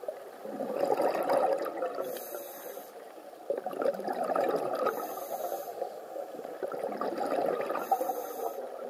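Scuba regulator breathing heard underwater: a short hissing inhale about every three seconds, three times, each followed by a longer bubbling exhale.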